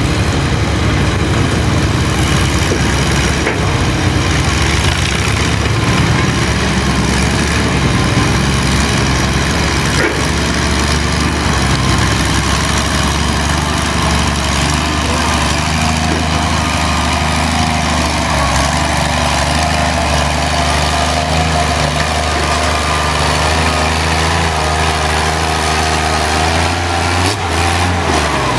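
Antique Oliver tractor's engine running steadily under heavy load as it drags a weight-transfer sled down a pulling track.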